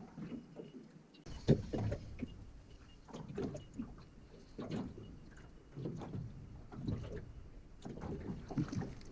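Irregular soft knocks and handling noises about once a second while a small hooked flathead is brought in to the boat, over low wind rumble on the microphone that starts about a second in.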